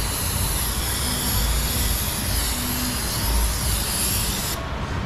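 Aerosol cleaner can spraying in a steady hiss onto an oily oil pan and crossmember, washing off old oil residue; the spray stops near the end.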